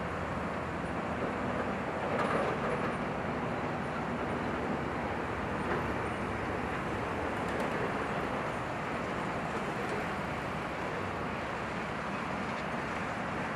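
Steady, distant rush of a Boeing 787-9's jet engines at low taxi thrust, with a slight swell about two seconds in.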